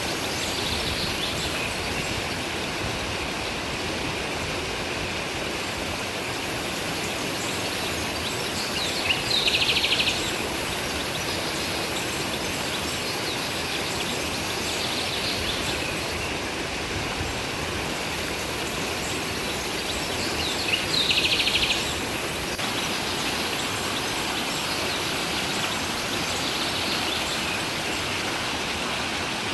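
A stream flowing steadily. A bird twice gives a short, rapid, high trill about a second long, about a third and two-thirds of the way through, with fainter calls in between.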